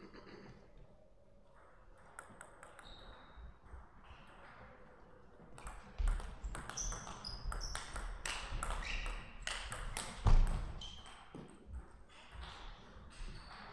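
Table tennis rally: the celluloid ball clicks rapidly off bats and table, with short high squeaks of shoes on the court floor. The rally ends about ten seconds in with one loud thud.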